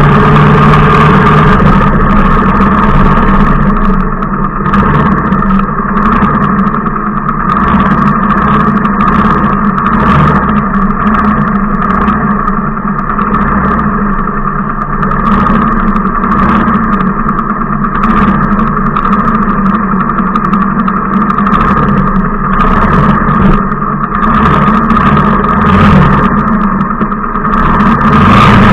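Motorcycle engine running steadily at low speed and idling, with scattered short clicks and knocks.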